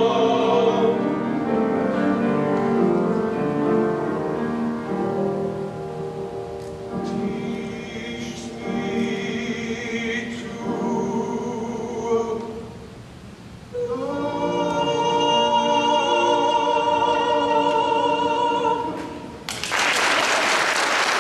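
Two men singing together, ending the song on a long held note, with the congregation bursting into applause near the end.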